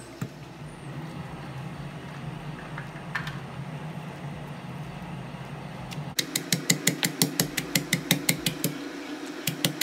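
A steady low hum, then from about six seconds in a stone pestle pounding in a granite mortar at about five strikes a second, crushing ginger, garlic and green chillies.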